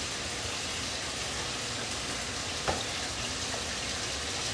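Food frying in a pan, a steady sizzle, with a single sharp click about two-thirds of the way through.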